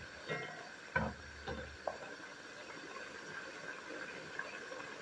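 Tomato sauce with vegetables simmering in a pan, a steady hiss and bubbling. A spatula knocks and scrapes against the pan a few times in the first two seconds, loudest about a second in.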